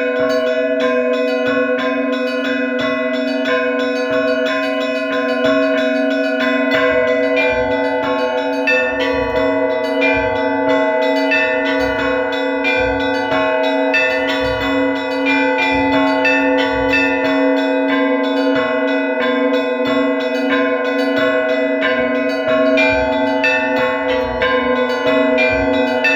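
Orthodox church bells ringing: deep bell tones hold steady beneath rapid, continuous strikes of smaller bells.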